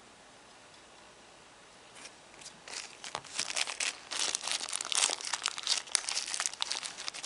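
Clear plastic accessory bag crinkling in the hands as it is worked open, in quick irregular rustles from about two seconds in.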